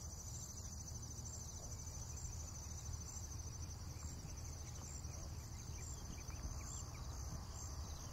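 Faint night ambience of crickets chirping steadily in a high, evenly pulsing trill, over a low steady hum.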